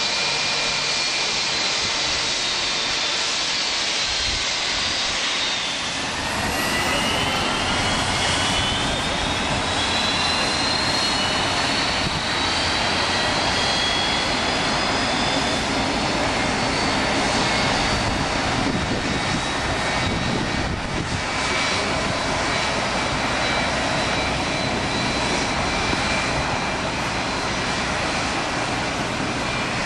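Airbus A319 jet engines running, a loud, steady rumble with a high whine. At first the whine falls in pitch. About six seconds in, a new whine rises for several seconds as the rumble grows, then holds steady.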